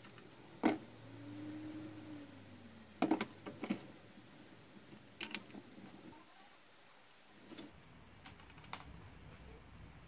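Scattered sharp clicks and knocks of a screwdriver and the chainsaw's metal and plastic parts as an old Husqvarna chainsaw is worked on and tipped over on a table before being taken apart.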